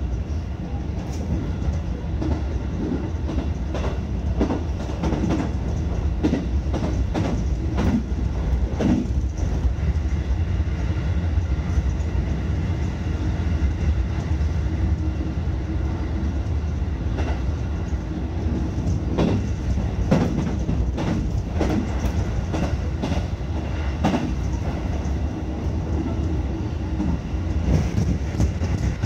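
Electric train running along the track: a steady low rumble with irregular clicks and knocks as the wheels cross rail joints and points.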